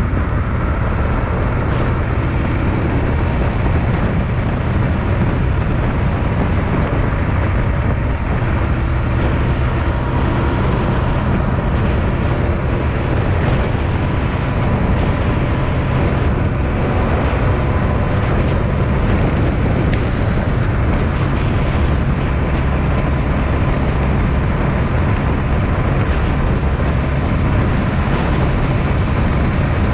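Honda Transalp XL650V's V-twin engine running steadily under way, with wind rushing over the microphone.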